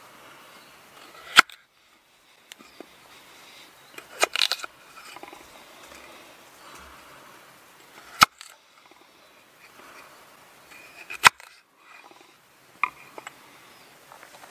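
Knife cutting potatoes on a wooden chopping board: a few sharp knocks several seconds apart as the blade goes through and strikes the board, with softer handling noises between.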